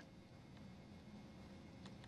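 Near silence: faint room tone with a low hum and two faint ticks.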